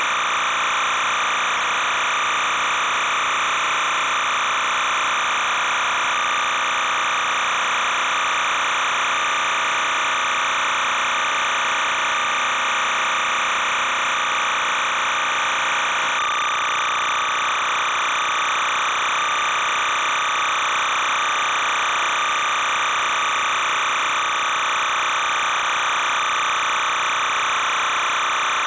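Steady, unchanging hiss and buzz with no game sound in it: the noise of an old videotape audio track carrying no programme audio.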